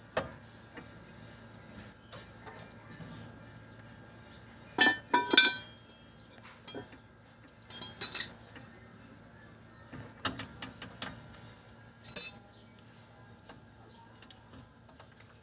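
Metal tools and parts clinking and knocking with a ringing tone, in scattered clusters of a few sharp strikes, during work on a rear axle.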